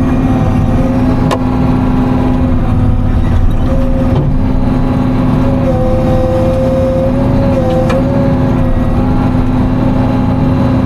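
Timberjack 608's diesel engine running steadily under load, heard from inside the cab, with a higher tone that wavers in pitch over it. A few sharp clicks or knocks come through, one about a second in, one around four seconds and one near eight seconds.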